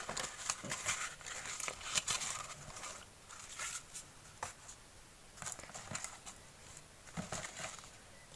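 Paper rustling with light clicks and taps as sheets and small items are handled, busiest in the first couple of seconds, then sparser.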